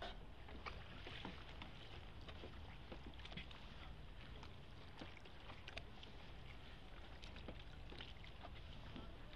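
Small rowing boat moving through calm water under Venetian-style oar strokes (voga veneta): a quiet steady wash of water along the hull, with small irregular splashes, drips and ticks from the oar and lapping water.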